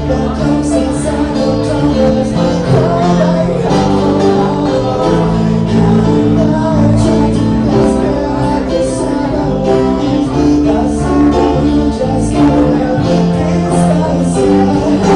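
A band song with a steady beat, guitar and singing.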